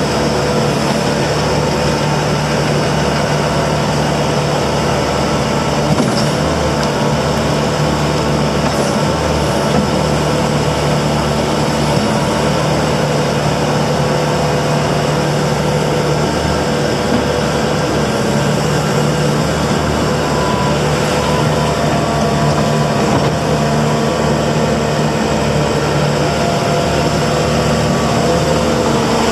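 Bobcat S740 skid steer loader's diesel engine running at a steady speed, loud and unchanging, with a few faint clicks.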